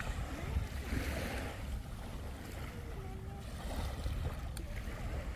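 Wind buffeting the microphone in uneven gusts over a steady wash of sea water.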